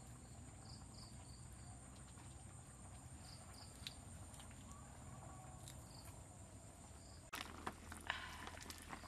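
Faint steady drone of insects with a few short high chirps; about seven seconds in, a spatula starts scraping and knocking in a wok.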